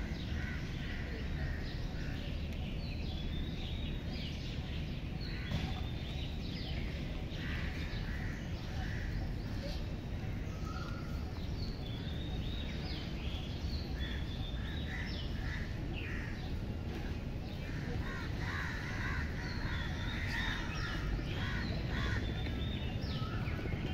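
Birds calling over and over, many short calls scattered throughout, over a steady low background noise.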